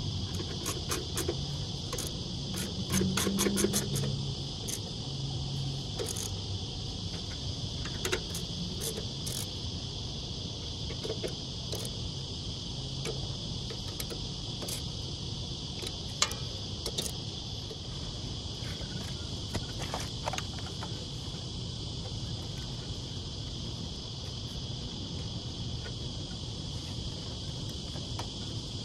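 Steady, high-pitched insect trilling throughout, with bursts of quick clicks from a screwdriver turning the air-conditioner fan motor's mounting bolts in the first few seconds and single clicks and knocks later.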